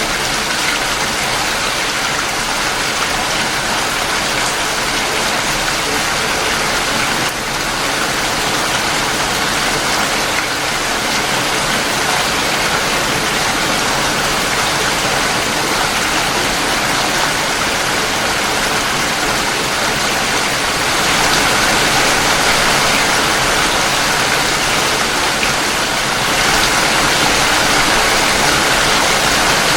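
Steady rain falling, an even hiss of many drops with no distinct patter, getting slightly louder twice in the second half.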